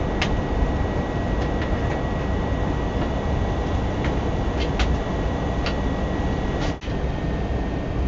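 Steady rumbling cabin noise of an airliner in flight on descent, with a faint steady high tone and a few light clicks. The noise drops out briefly about seven seconds in.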